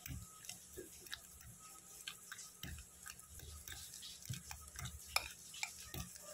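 Fork mashing overripe peeled bananas in a glass bowl: faint, irregular squishing with light clicks scattered throughout.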